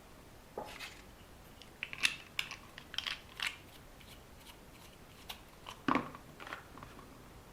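A string of small, sharp clicks and crackles from close-up hand work at a bench, bunched in two clusters a few seconds apart.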